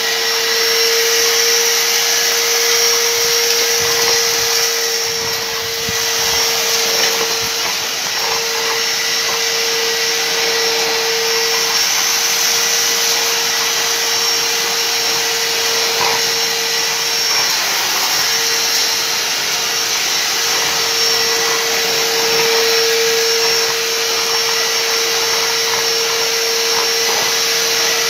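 A 1600 W, 30-litre stainless-steel wet-and-dry canister vacuum cleaner running steadily at full suction, a loud motor whine over rushing air, as its floor nozzle sweeps grit and paper scraps off the carpet.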